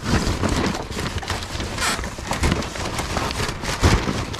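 Scrap being rummaged through in a dumpster: a rapid, irregular run of clanks and clatters as metal pieces and debris are shifted and pulled free.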